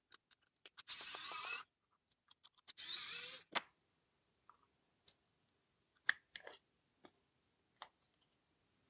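Electric precision screwdriver whirring in two short bursts as it backs out the stopwatch's tiny case screws, then a series of sharp plastic clicks as the case back is pried loose and lifted off.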